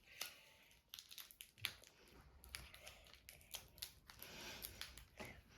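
Faint, scattered crinkling and clicking of sweet packaging being handled while someone tries to get a caramel out of it.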